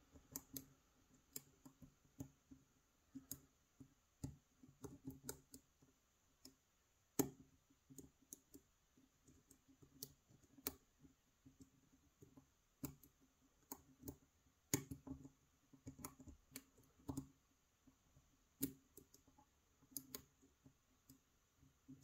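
Lock pick working the tapered pin tumblers of a brass cylinder lock: sparse, irregular small clicks as pins are pushed one at a time, a few of them louder than the rest.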